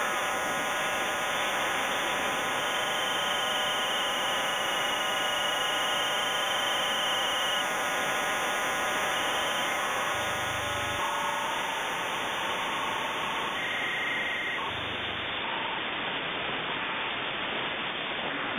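Shortwave radio receiver static: a steady hiss with several steady whistles at different pitches layered over it, a few of them starting and stopping along the way.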